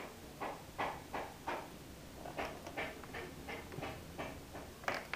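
A laptop memory module being pushed into its slot in the underside memory bay, with fingers pressing and tapping on the module and the plastic case. It makes a run of short clicks and taps, about three a second and uneven, with the sharpest click near the end.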